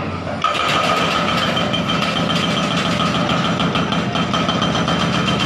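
Hydraulic excavator working during demolition: its diesel engine runs under load with a steady high whine, which rises suddenly about half a second in and then holds.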